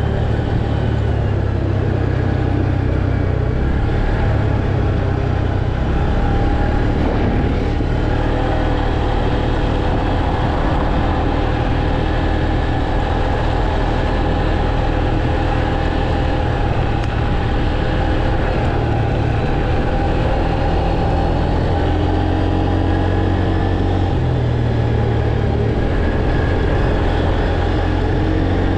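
Tracker ATV engine running steadily under way, its pitch shifting a little with the throttle.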